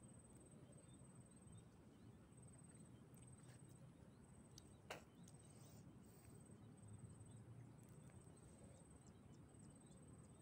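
Near silence: faint outdoor ambience with an insect chirping in repeated trains of rapid, high-pitched pulses, and a single faint click about five seconds in.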